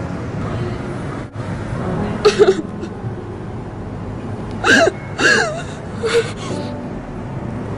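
A woman crying: about four short, shaky sobs and whimpers that break up and down in pitch, over a steady background rumble.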